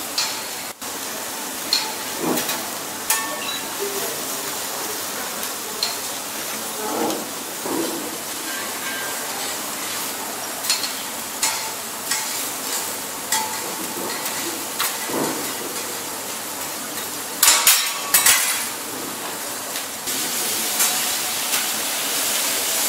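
Steel spatulas clinking and scraping on a flat-top steel teppanyaki griddle over a steady sizzle of food frying. A quick flurry of clanks comes about three-quarters of the way through, and the sizzle grows louder near the end, with meat frying and steaming on the griddle.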